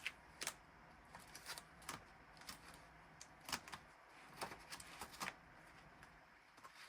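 Faint, scattered clicks and rustles of paper being handled: cash envelopes and bills being shuffled and set down.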